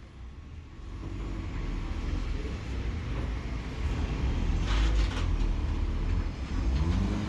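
A vehicle engine pulling hard under load, its low rumble building up about a second in and then holding, as it tows a loaded wood trailer up a slope.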